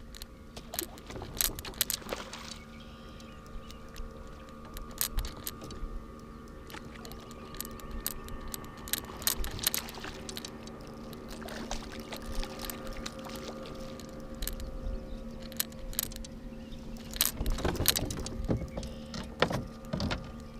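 A motor running with a steady hum, with repeated clicks, rattles and knocks over it.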